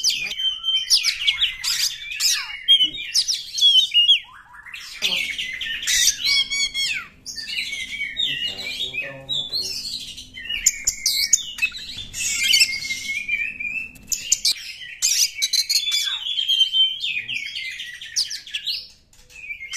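Oriental magpie-robin singing a long, varied song: clear whistled phrases mixed with fast trills and harsh chattering notes, with only brief pauses.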